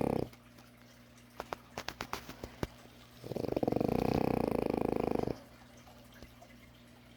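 French bulldog puppy snoring loudly while asleep: the end of one snore at the start, a few faint clicks, then one long snore of about two seconds near the middle.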